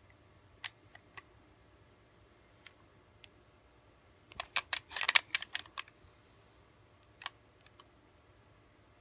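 Light metallic clicks from handling a chrome G10 .177 BB repeater air pistol, then a quick run of about a dozen sharper clicks and rattles over a second and a half about halfway through, and one more click near the end.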